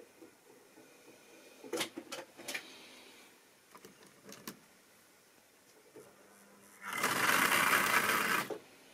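Tri-ang model diesel shunter handled with a few light clicks and knocks, then its small electric motor buzzes loudly for about a second and a half near the end as the train pulls away, stopping abruptly.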